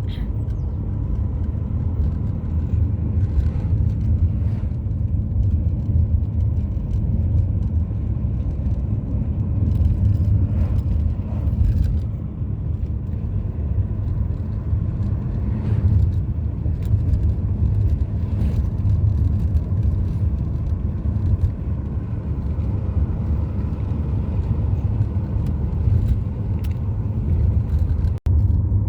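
Sea waves breaking on a beach, heard as a steady, loud low roar that swells and eases.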